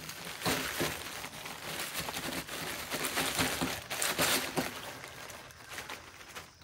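Zipper-lock plastic bag crinkling and rustling in several bursts as a salt-cured slab of pork belly is shaken and pushed out of it onto a table.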